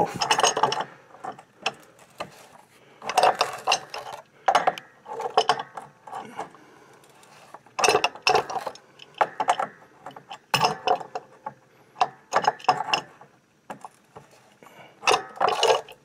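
Metal wrench clicking, clanking and scraping on a corroded water-heater pipe fitting in short, repeated bursts as the fitting is worked loose.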